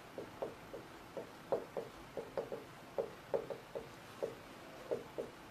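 Dry-erase marker writing on a whiteboard: a quick, irregular run of short strokes and taps, several to the second, one for each pen stroke of the lettering.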